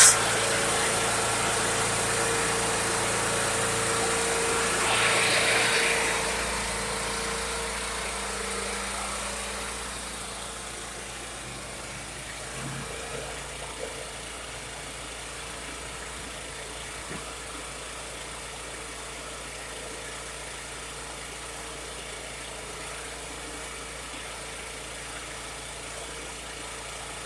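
Champion 100519 inverter generator's engine running steadily out of eco mode, its fuel valve closed so that it is running the carburetor dry. A brief rush of noise comes about five seconds in, and the engine then sounds quieter but keeps running evenly.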